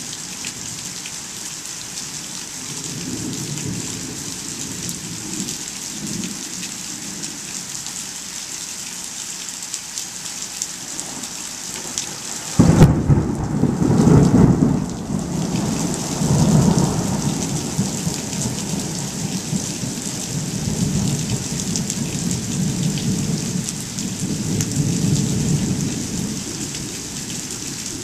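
Steady rain falling, with a sudden loud thunderclap about halfway through that rolls on as low rumbling in several swells, fading near the end.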